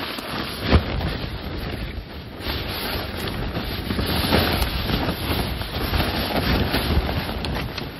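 Strong wind gusting and buffeting the microphone, with a sharp thump about three quarters of a second in.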